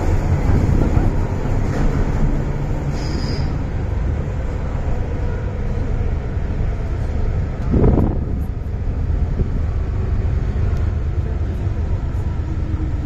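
Interior of an old MTR Island Line M-Train (Metro-Cammell EMU) running between stations: a steady, loud rumble of wheels on rail and traction equipment, with a single thump a little past halfway.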